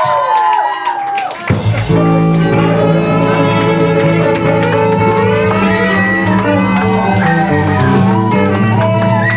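Live band music: gliding melodic lines, then about one and a half seconds in the full band comes in with a steady bass line and sustained chords.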